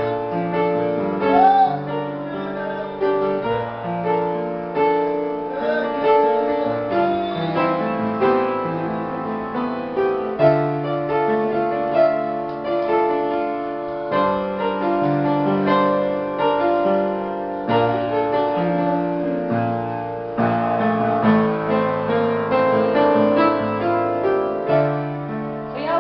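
Piano being played: a continuous piece of chords over held bass notes that change every second or two.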